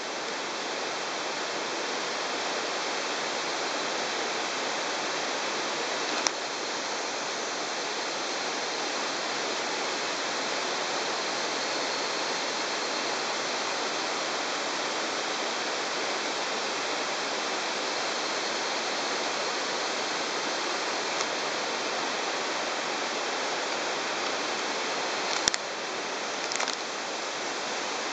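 Steady rushing of a stream, with a brief click about six seconds in and a couple more near the end.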